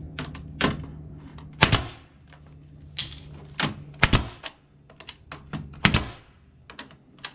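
Pneumatic brad nailer firing thin nails through a melamine strip into wooden concrete formboards: a string of sharp, irregular snaps, the loudest near two, four and six seconds in. A low hum underneath stops about two seconds in.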